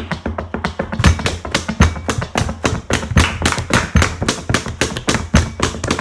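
A home-made drumming beat of hands slapping and tapping a tabletop: a steady rhythm of quick sharp taps, several a second, over a heavier low thud about every three-quarters of a second.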